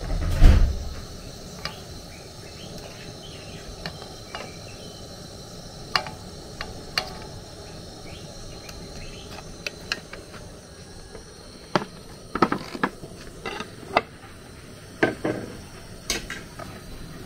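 Metal spatula and kitchenware clicking and knocking against a frying pan, tray and bowl in scattered sharp taps, with a heavy thump about half a second in. Under them runs a steady high-pitched chirring.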